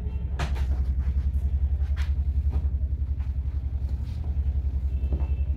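A steady low hum that pulses rapidly, with a few short crackles of plastic packaging and cloth being handled as a folded suit is pulled out and shaken open.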